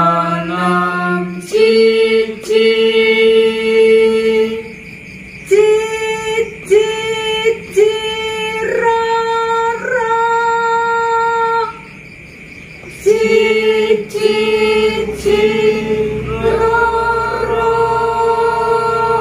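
Unaccompanied voices singing a Javanese tembang macapat Pangkur melody in slow, long held notes, phrase by phrase with short breaks between. A woman's voice leads, with a lower voice joining on some phrases.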